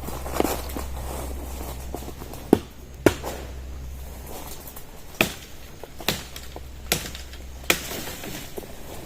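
Sharp chopping strikes of a blade cutting small trees, six of them at irregular intervals, the loudest two close together about two and a half and three seconds in, over a low steady rumble.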